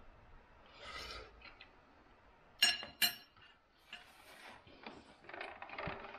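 Spoon knocking sharply twice against a soup bowl, about half a second apart, amid soft rustling and shuffling as the eater moves.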